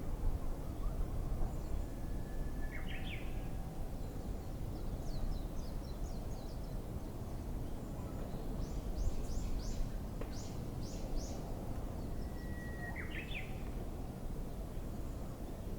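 Two songs of a Japanese bush warbler (uguisu), each a held whistle ending in a quick rising flourish, about three seconds in and again near the end. Between them a second bird gives runs of short high notes, over a steady low rumble of outdoor noise.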